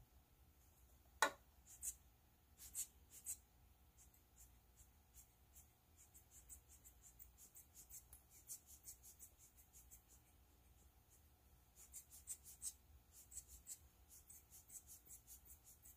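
Rubber air-blower bulb squeezed again and again, giving short, faint puffs of hissing air that blow wet alcohol ink across the paper; the puffs come quickly, several a second, and are thickest near the end. A single sharp click sounds about a second in.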